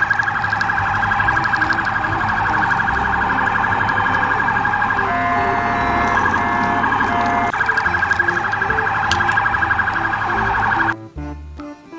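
Police siren sounding in a fast warble. About five seconds in it switches for a couple of seconds to steady tones with short breaks, then goes back to the warble. It stops about a second before the end.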